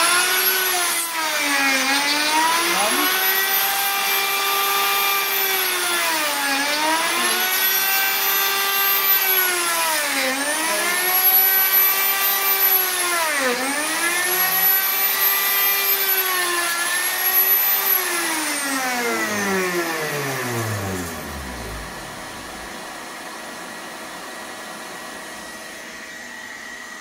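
Lumberjack PR14 router with a dovetail cutter making five cuts in a dovetail jig. Its high motor whine sags in pitch five times as each cut loads the cutter. About 18 seconds in the router is switched off and the whine falls away as the cutter winds down, leaving the steadier, quieter hum of the dust extractor.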